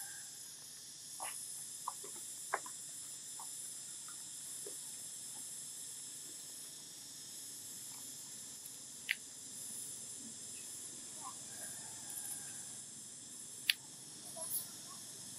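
Steady high-pitched insect chorus, a shrill continuous drone, with a few short sharp clicks scattered through it, the loudest near the end.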